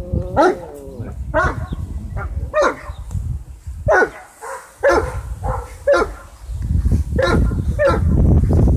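Adult Great Danes barking, a string of about ten separate barks, with wind rumbling on the microphone that grows stronger near the end.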